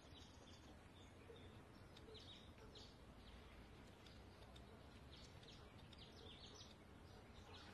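Near silence: faint ambient hiss with scattered soft bird chirps.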